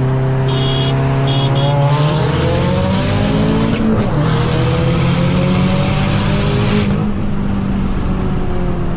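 Subaru WRX's turbocharged flat-four heard from inside the cabin during a drag race: steady at first, then pulling hard under full throttle from about two seconds in, with a brief break for a gear change around four seconds, and easing off near the end.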